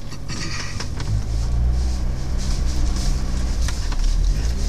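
Off-road 4x4's engine running steadily under load as it crawls along an overgrown track, getting louder about a second in, with grass and twigs swishing and scraping against the bodywork.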